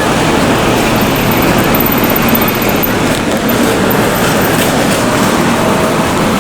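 Subway train running: a loud, steady rumbling rail noise.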